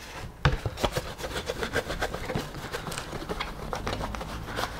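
A cloth rag rubbing and wiping over a polycarbonate (Lexan) RC buggy body shell, heard as an irregular run of scuffs and light ticks.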